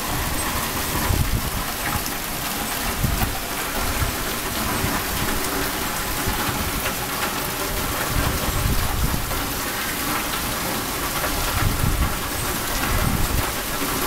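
Heavy downpour falling steadily in a rainstorm, with wind gusting on the microphone in irregular low rumbles.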